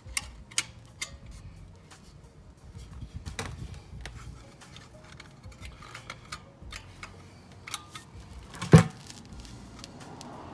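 A magnetic brake caliper cover being handled against a rear brake caliper, with scattered light clicks. About nine seconds in comes one sharp, loud clack as the magnets snap the cover onto the caliper.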